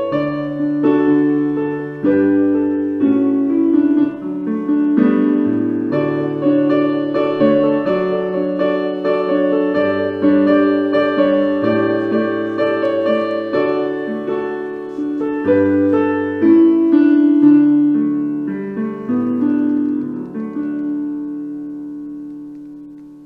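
Yamaha Clavinova digital piano played with a piano sound, chords changing about once a second, closing on a held chord that fades away near the end.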